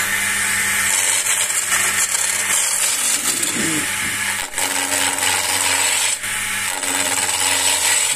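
Wood lathe running while a skew chisel takes a heavy cut along a spinning walking-stick blank, a steady hiss of cutting over the motor's low hum. The sound dips briefly twice, about four and a half and six seconds in.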